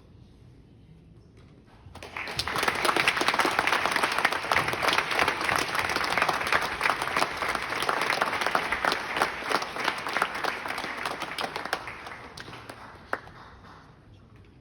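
Audience applauding: it starts about two seconds in, holds steady, then dies away over the last few seconds, with a single late clap near the end.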